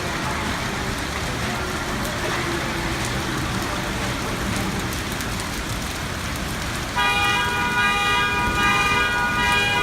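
Hail and heavy rain pelting down steadily. About seven seconds in, a loud alarm tone starts, sounding in short pulses over the storm.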